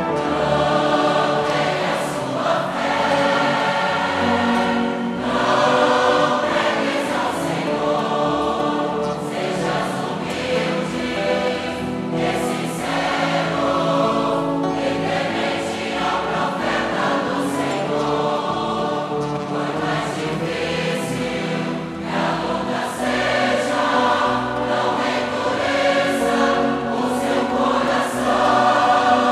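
Mixed choir singing a Portuguese-language hymn, accompanied by a wind band of saxophones and brass.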